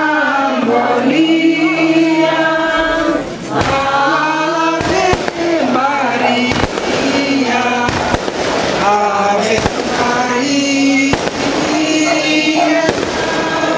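Fireworks going off overhead in sharp, irregular bangs about every second or two, starting a few seconds in. Under them, the procession's voices sing a slow devotional chant with long held notes.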